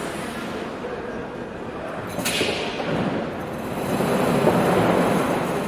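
Airport terminal ambience: a steady wash of indistinct background noise, with a brief sharp hiss or clatter about two seconds in and a swell that grows louder about four seconds in.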